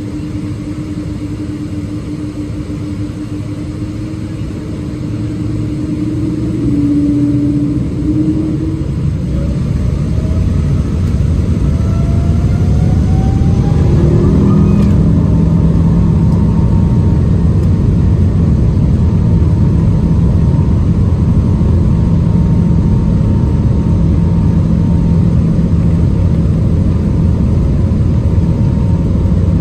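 Boeing 777-200ER's Pratt & Whitney turbofan engines heard from a cabin seat over the wing. They hum steadily at first, then spool up with a rising whine from about eight seconds in, growing louder until about halfway through. From there they run loud and steady at takeoff thrust.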